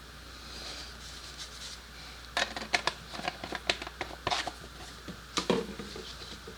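Objects being handled by hand: a quick run of sharp clicks and knocks starting a couple of seconds in and lasting about three seconds, with a duller knock near the end.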